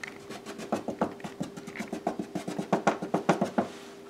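Metal measuring cup being shaken and tapped to sprinkle flour onto a cutting board: a rapid run of light taps, starting about a second in and stopping shortly before the end.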